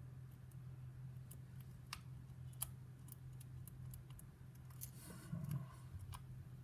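Faint, scattered metallic clicks of a lock pick probing and lifting the pins inside a pin-tumbler lock, over a steady low hum.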